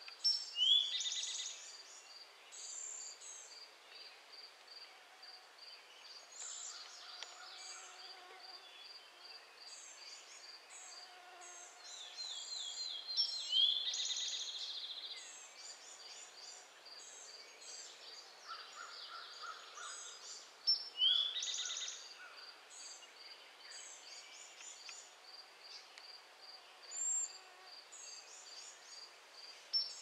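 Several songbirds singing over a steady, evenly repeated high note. Louder song phrases come about a second in, near the middle and about two-thirds of the way through.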